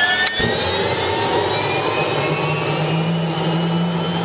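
Turbine engine of an MD520N NOTAR helicopter spooling up during start-up: a whine that rises in pitch and then levels off, under a steady rushing. There is a brief click just after the start.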